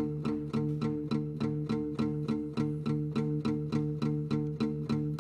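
Nylon-string classical guitar strummed in a steady, repetitive disco-style vamp, the same chords struck about four times a second.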